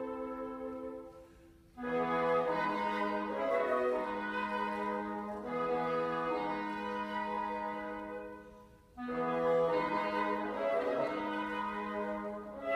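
Woodwind trio of flute, clarinet and bassoon playing held chords, phrase by phrase. The sound falls away to a short break about a second and a half in and again near the nine-second mark, each time starting again on a new chord.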